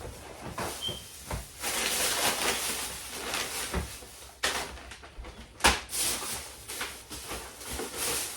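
Groceries being handled and put away: packaging rustling for a couple of seconds, with several knocks and clunks as items are set down, the loudest a little past the middle.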